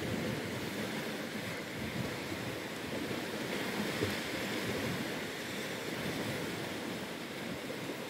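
Steady wash of surf on a sandy beach, with wind noise on the microphone.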